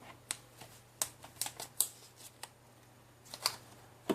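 A small cardboard product box and its packaging being handled and opened: a string of irregular light clicks, taps and brief rustles.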